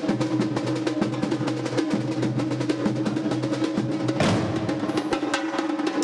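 Samba school drum section (bateria) playing a fast samba rhythm: rapid, dense strokes on metal snare drums (caixas) over the deep beats of surdo bass drums. The low end grows fuller about four seconds in.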